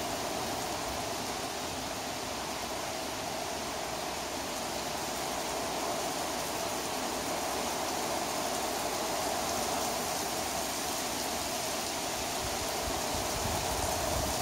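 Heavy rain pouring down in a thunderstorm downpour: a steady, even hiss with no breaks.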